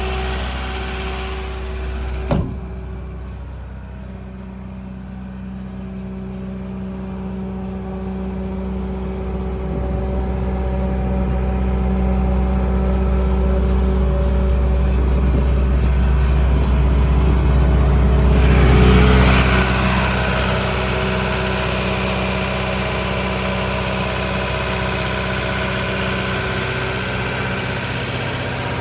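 Kaeser M 115 N mobile compressor's four-cylinder Kubota V3800 diesel engine running steadily. A sharp click comes about two seconds in, after which the high hiss drops away and the low drone slowly grows louder. Near the end of the loudest stretch there is a short surge of noise, and then the hiss returns over a steady run.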